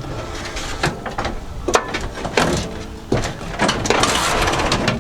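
Handling noise from parts being fitted into a ute canopy: a string of irregular knocks and clunks, with a scraping rush about four seconds in.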